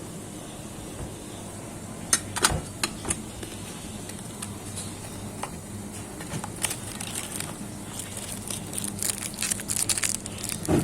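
Hand work with tools on a washing machine motor during a bearing change: scattered sharp clicks and light knocks, a few about two seconds in and growing more frequent toward the end, over a steady low hum.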